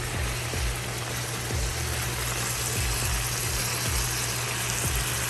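Chicken pieces sizzling in a frying pan: a steady hiss with a low hum underneath and a few soft knocks.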